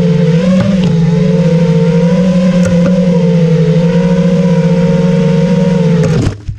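FPV quadcopter's T-Motor F60 Pro V2 2700kv brushless motors and propellers whining at a steady pitch, then spinning down and stopping about six seconds in.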